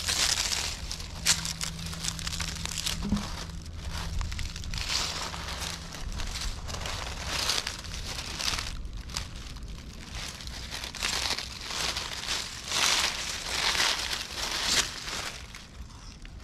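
Footsteps through a thick layer of dry fallen leaves: the leaves crunch and crinkle in irregular bursts.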